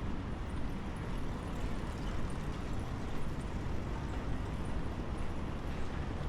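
Urban street ambience: a steady low rumble of road traffic, with no single event standing out.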